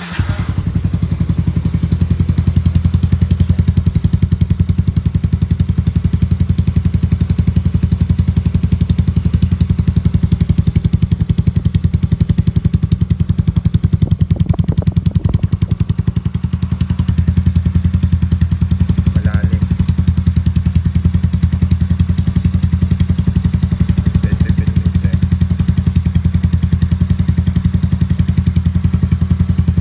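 Yamaha Mio 125 scooter's single-cylinder engine running loud through an Exos R6 aftermarket exhaust: it catches right at the start, then idles steadily with a rapid, even pulsing.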